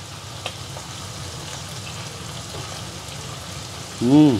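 Oysters frying in garlic and chili oil in a nonstick pan: a steady sizzle, with a light click about half a second in. Near the end, a person's short hummed sound that rises and falls in pitch.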